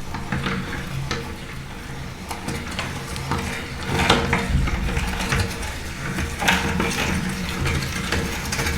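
Electric meat grinder's motor running with a steady hum while its auger grinds dry, crunchy food, giving a dense, irregular crackle with louder crunches now and then.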